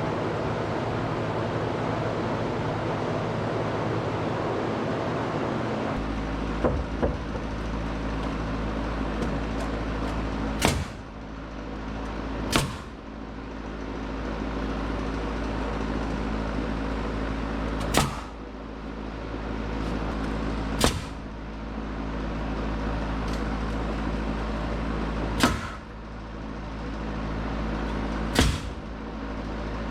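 Sharp single bangs, about six of them a few seconds apart, over a steady machine hum: fastening work on timber framing.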